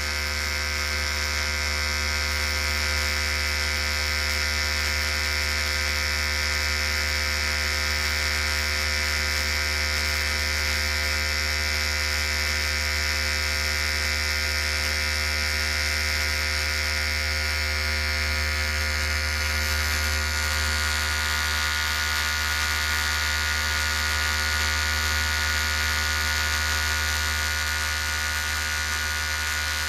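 Electric hair clippers running continuously with a steady buzz.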